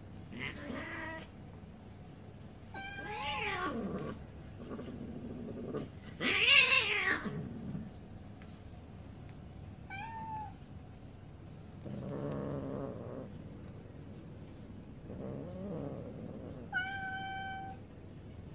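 Cats meowing during play-wrestling, about seven separate calls. Some are drawn out and fall in pitch, the loudest comes about six seconds in, and a short, steady, higher meow comes near the end.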